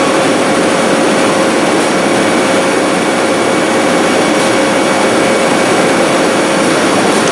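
Sandingmaster wide-belt sander running steadily, its abrasive belt and feed belt both going, a loud even rush of machine noise with a steady hum.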